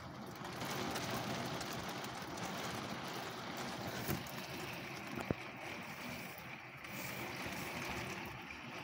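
Heavy rain falling in strong, gusty wind: a steady rushing noise that swells now and then, with two brief knocks about four and five seconds in.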